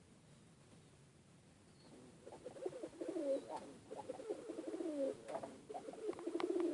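Domestic pigeons cooing: repeated rolling, warbling coos start about two seconds in and carry on, with a few light clicks among them.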